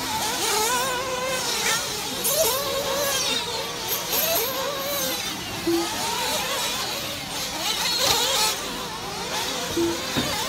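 Several 1/8-scale nitro RC buggy engines, the Xray XT8 among them, revving and easing off as the cars race around the track, their high-pitched whine rising and falling constantly. Two short beeps sound, one midway through and one near the end.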